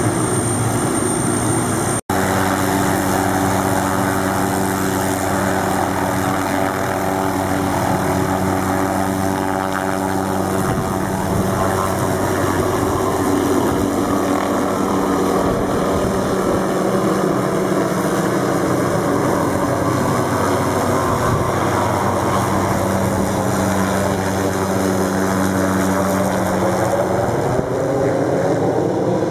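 Small police helicopter's turbine and rotor running steadily as it lifts off and climbs away overhead; near the end the pitch of its drone bends as it passes above.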